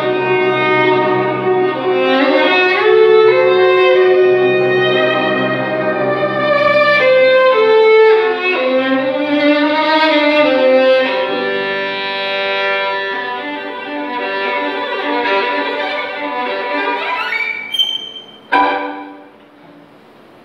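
Solo violin playing a slow melody with sustained notes over a lower accompaniment. Near the end it climbs in a rising run to a sharp final stroke, and the music drops away.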